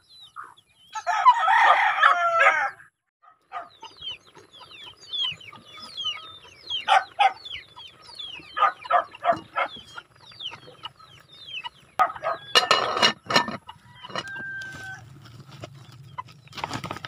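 Free-range chickens: a rooster crows once about a second in, then the flock clucks and chirps with many short, repeated calls. A louder cluster of sharp sounds comes about twelve seconds in.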